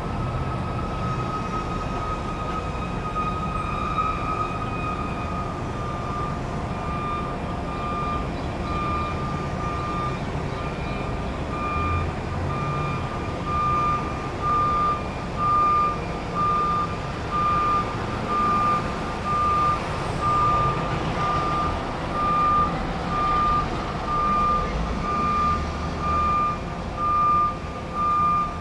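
Truck backup alarm beeping about once a second, a single high tone, over a low rumble of engine and traffic. The beeps grow louder and more distinct about halfway through.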